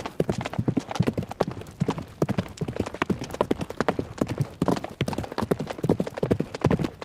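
Hoofbeats of several running horses: a dense, irregular stream of sharp clip-clop strikes.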